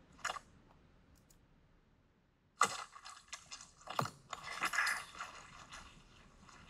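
Layered cartoon sound effects for a gelatin cube dropping and landing: a sharp hit about two and a half seconds in, then a quick run of crunchy, squelchy hits with a low falling thud about four seconds in. A single mouse click comes just after the start.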